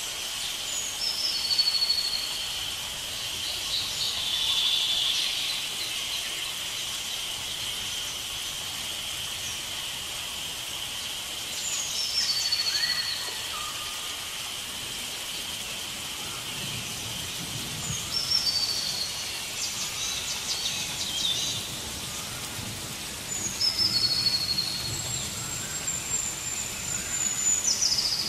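Rainforest ambience: a steady high insect drone, with a bird repeating a short call several times, a quick falling whistle that settles on a held higher note.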